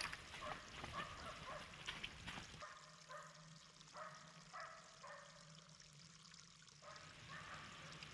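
Near silence: faint rustles and ticks for the first couple of seconds, then a few faint short high-pitched chirps.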